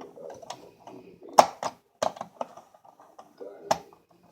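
Sharp clicks and taps of toy train locomotive parts being handled and pressed together as the body's tabs are worked into the frame slots, the loudest knock about a second and a half in, with a few more after it.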